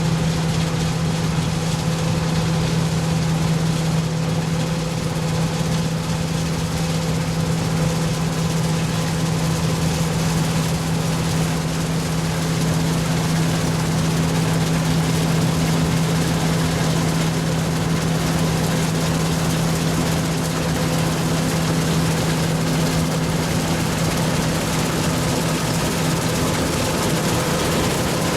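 Heavy diesel engine of farm harvest machinery running steadily at constant speed, with a strong low hum and fainter steady tones above it over a broad mechanical rush.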